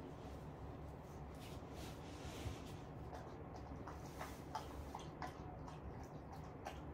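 A 13-year-old golden retriever eating soft food from a hand-held bowl: faint wet mouth sounds and small irregular clicks, starting about three seconds in.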